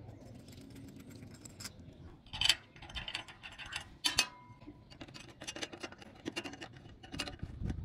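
Wrench turning a bolt on a galvanized steel solar-panel mounting bracket: scattered metallic clicks and clinks, coming faster in a run of quick clicks in the second half.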